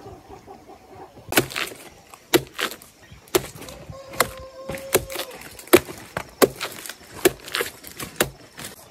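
Repeated sharp chopping strokes, about one a second and often in quick pairs. A brief held call sounds about halfway through.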